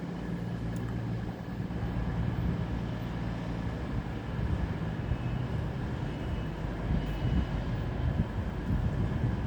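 CrossCountry Voyager diesel multiple unit's underfloor diesel engines running with a steady low hum. From about four seconds in this gives way to a louder, uneven rumble.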